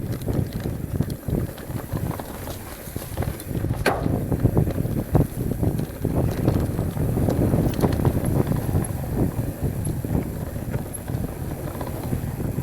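Mountain bike riding fast down a rough dirt trail: a continuous rumble of tyres on the ground, with frequent irregular knocks and rattles from the bike going over bumps.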